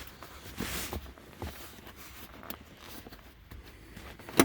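Faint rustling and light knocks of a car's rear seat and its trim being handled, with one sharp click near the end.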